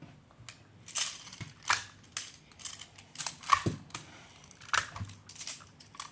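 Plastic magnetic building blocks clicking and clacking as they are handled and snapped together, in irregular sharp clacks with some rustling between them.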